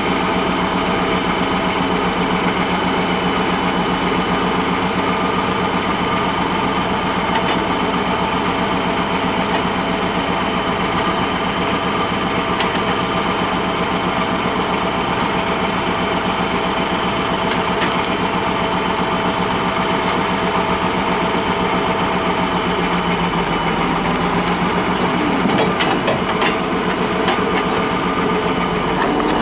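A heavy engine idling steadily with an even, fast pulse, with a few light knocks near the end.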